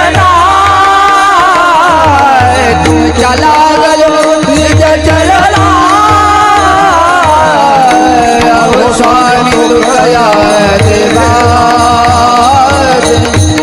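Marathi devotional kirtan music: a long, smoothly gliding and ornamented melodic line, most likely the singer's wordless vocal run, over held accompanying tones and a steady beat on a hand drum.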